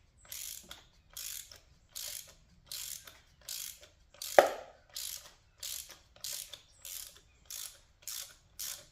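Hand ratchet clicking in even back-and-forth strokes, about one and a half a second, as a spark plug is backed out of a 2020 Hyundai Elantra's cylinder head. One louder, sharper metallic clack comes about halfway through.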